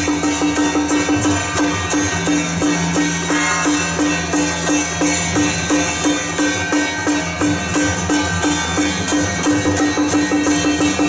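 Temple procession percussion music: drums and other percussion playing a steady, fast beat, with a pitched knock repeating about three times a second.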